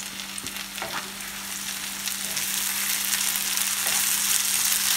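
Sliced onions and green chillies sizzling in hot mustard oil in a frying pan, stirred with a wooden spoon, with a few spoon scrapes about a second in. The sizzle grows louder partway through.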